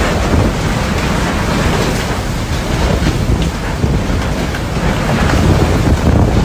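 Typhoon wind and heavy rain: a loud, steady rush of gusting wind and driving rain, with the wind buffeting the microphone.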